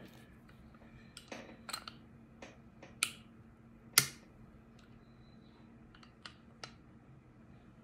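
Scattered small clicks and taps of a hand tool working on a condenser microphone's parts as it is being taken apart, about ten of them, the sharpest about four seconds in.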